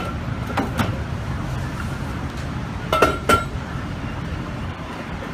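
Metal firefighters' breathing cylinders clinking against each other as they are handled in the back of a van: two pairs of sharp clinks with a short ring, one pair about a second in and one about three seconds in. A steady street traffic rumble runs underneath.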